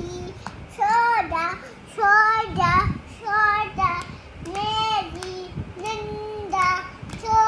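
A toddler girl singing a wordless tune in short, high-pitched phrases about a second apart.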